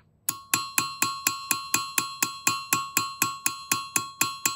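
A cross-peen hammer strikes sheet metal on a steel anvil in a steady run of quick blows, about four a second, each one ringing. The overlapping strokes texture the metal and work-harden it.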